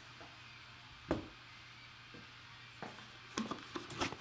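Handling noises from a trading card in a clear plastic case being pulled out of a foam-lined box and set down on a table: one sharp click about a second in, then a cluster of small clicks and knocks near the end.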